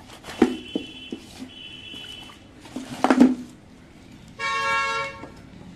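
A cardboard box is handled with a few light clicks, then a loud rustle about three seconds in as the plastic-bagged tripod is tipped out of it. About a second later a vehicle horn sounds once, a steady honk lasting nearly a second.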